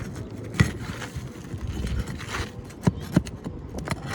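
Scraping and several sharp knocks on a roof shingle as a nail is worked loose from under it.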